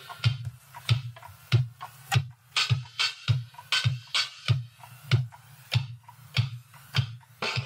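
Instrumental electronic music: a drum-machine beat of steady low kicks and sharp snare-like hits, with no vocals. The fuller synth chords drop out right at the start and come back near the end.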